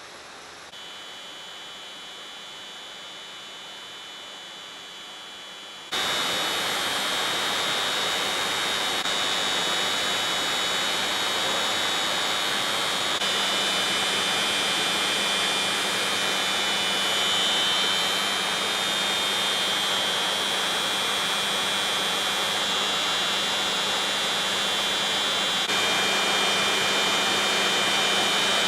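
Factory machinery running steadily, a hiss with a high whine and a low hum, becoming much louder about six seconds in.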